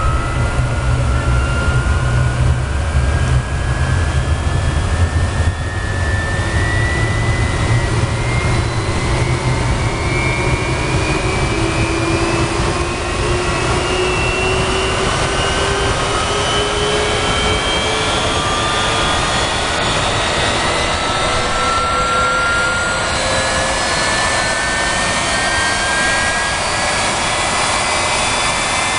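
Westinghouse J34 turbojet engine running on a ground test stand: a loud, steady jet roar with a whine that rises slowly and steadily in pitch as the engine gains speed.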